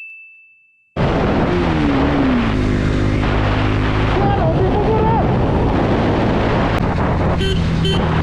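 A high ringing tone fades away into about a second of silence, then a motorcycle engine runs under heavy wind noise on the microphone while riding. The engine pitch drops, then holds steady.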